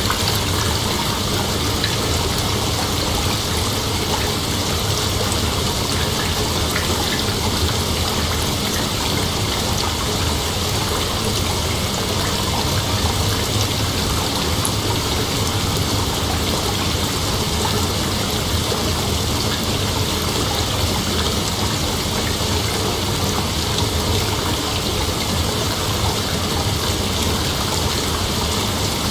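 Steady, dense chorus of night insects: a continuous, even hiss that does not change.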